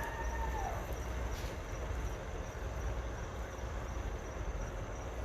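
Outdoor night ambience: a steady low rumble under a thin, steady high chirring of insects. A brief pitched call carries over into the start and drops off in pitch about half a second in.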